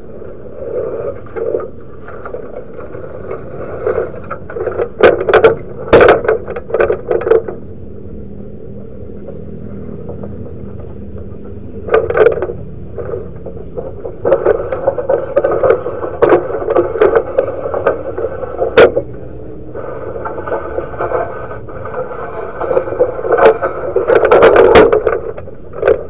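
Zebra dove (perkutut) cooing close to the microphone in repeated bursts of short coos, with several sharp knocks between them.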